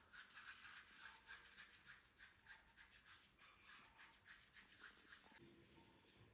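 Faint, repeated soft rubbing and patting of flour-dusted hands working dough, a quick series of light brushing strokes that stops near the end.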